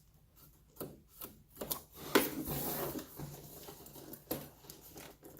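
Cardboard box being handled and opened: a few light knocks and taps, then a stretch of scraping and rubbing about two seconds in, with another knock near the end.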